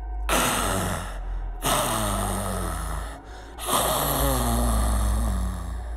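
Animal growl sound effect for a crocodile: three long, rasping growls, each falling in pitch, the last one the longest.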